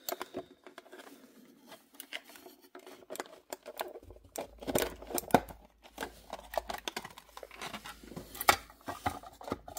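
Clear plastic display case being handled and opened: adhesive tape peeled off the plastic, then the rigid case and its plastic tray crackling and clicking in irregular bursts.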